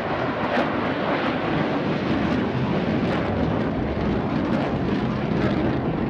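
Eurofighter Typhoon's twin Eurojet EJ200 turbofans in afterburner as the jet climbs and turns: a loud, steady jet roar with a ragged crackle.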